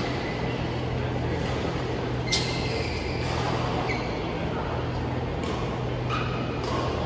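Steady hum and noise of an indoor badminton hall, with a few short, sharp squeaks and taps from the players on the court. The loudest comes about two and a half seconds in.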